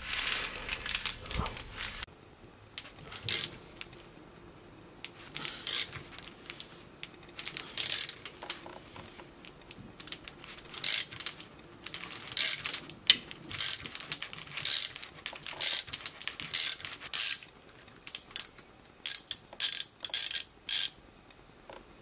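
An aerosol can of WD-40 hisses briefly as it sprays onto the stuck screw. Then a ratcheting T-handle clicks in irregular bursts as a screw extractor is turned counterclockwise to back the damaged screw out.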